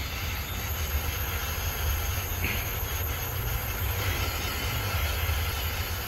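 Heat gun running steadily, an even rush of blown air, held on a plastic fuel line fitting to soften it so the line can be pulled off.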